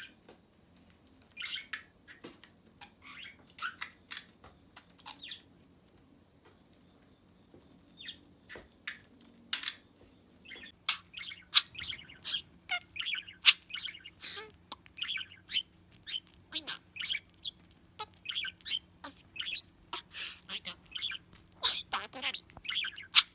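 Pet budgerigar chirping and chattering: scattered chirps at first, a short pause, then from about eleven seconds in a fast, busy run of warbling chirps and sharp clicks.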